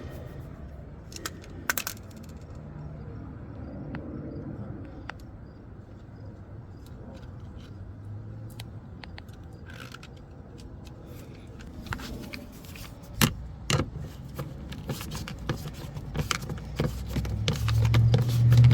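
Small metal tools clinking and rattling as they are handled, in scattered light clicks that come thicker in the last third. A low rumble builds near the end.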